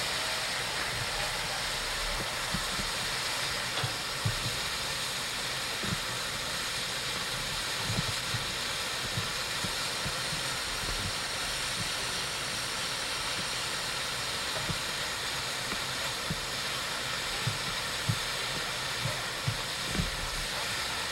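Norfolk & Western J-class 611 steam locomotive standing with steam hissing steadily, with occasional short low thumps.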